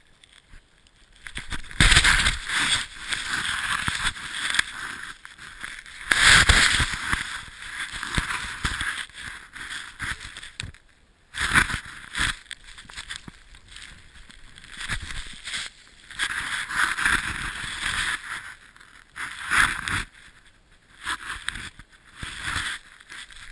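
Deep powder snow hissing and spraying as a rider descends, coming in repeated surges of a second or few with each turn and dying down between them, the spray close to the microphone.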